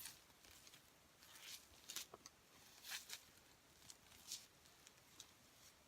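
Faint, scattered rustles and soft light handling noises of packaging being handled, a few short ones spread across a few seconds, over near silence.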